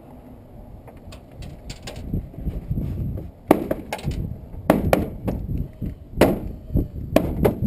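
The plastic back cover of a flat-screen TV being worked loose. There is rubbing and scraping of plastic at first, then about six sharp cracks and knocks from halfway in as the cover is pried and snapped free.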